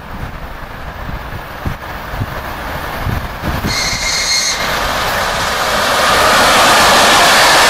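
ChS2K electric locomotive and its passenger train approaching and passing close by: the rushing noise of the train and its wheels on the rails builds, then turns loud and steady about six seconds in as the carriages go by. A short high-pitched tone sounds about four seconds in, and wind thumps on the microphone at first.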